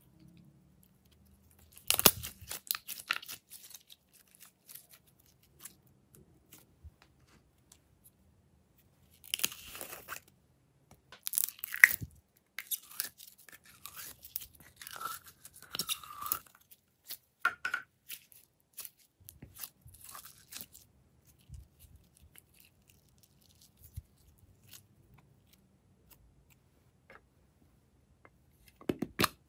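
Glitter slime being pulled and pressed by hand, making sticky crackling and squelching in irregular bursts with quiet gaps between. A sharp snap comes near the end.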